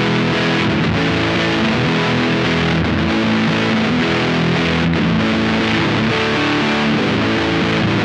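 Electric guitar played with heavy distortion: a Squier Paranormal Offset Telecaster with its neck and bridge pickups wired in series, driven by a Bookworm Effects Diving Belles pedal, its chords sustaining at a steady level.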